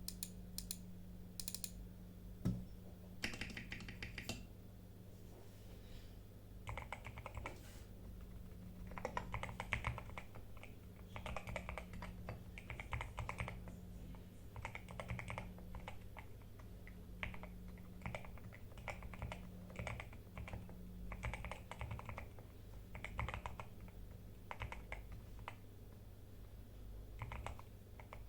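Typing on a GMK67 mechanical keyboard with lubed Outemu Red linear switches, dampened against noise and vibration and tape-modded. A few scattered keystrokes come first, then runs of keystrokes a second or two long with short pauses between them, over a steady low hum.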